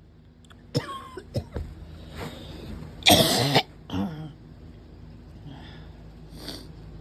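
A person's barking cough in a fit: two sharp coughs, then the loudest, longest cough about three seconds in, followed by a few weaker ones trailing off.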